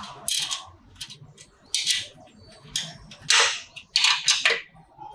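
Wrench turning and tightening a nut on a motorcycle frame bolt: a string of short, sharp clicks at irregular intervals.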